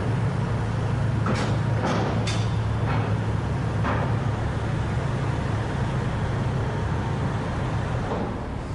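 Steady low engine drone on a ferry's enclosed car deck as motorhomes drive slowly aboard, with a few short knocks or clanks in the first four seconds.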